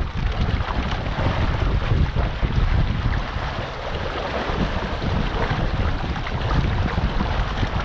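Wind buffeting the microphone in a steady low rumble over the rush and splash of water along the hull of a Catalina Capri 22 sailboat under sail.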